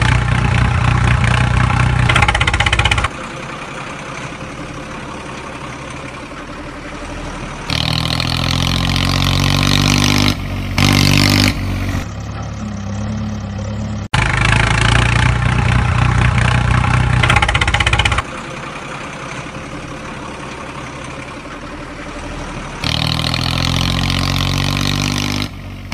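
A recorded engine sound effect, not the toy trucks themselves: a motor vehicle engine alternating between a steady idle and louder stretches where it revs up with rising pitch. The same sequence repeats about every fifteen seconds, as a looped track would.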